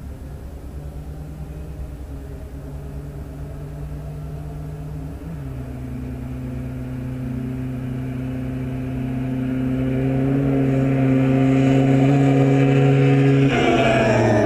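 Yamaha Blaster YFS200 quad's single-cylinder two-stroke engine running hard near top speed, approaching and getting steadily louder. Its pitch steps down once about five seconds in, as it shifts up a gear. Near the end it passes close by and its note drops sharply in pitch as it goes away.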